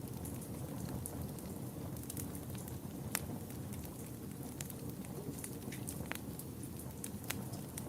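Wood fire burning in a fireplace: a steady low rush of flame with sharp crackles and pops at irregular moments, about one a second.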